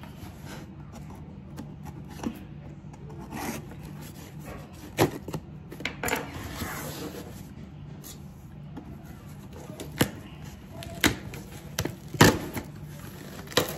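Cardboard shipping box being cut and torn open at its packing tape: scattered scratching and rasping with sharp knocks and taps on the cardboard, over a faint low hum.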